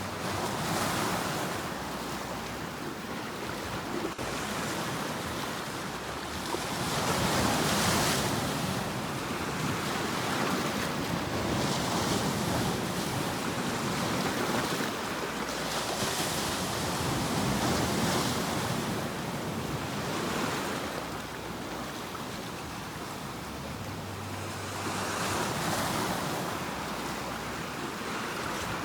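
Sea waves breaking and washing on a shore, a continuous surf that swells and ebbs with each wave, about five surges.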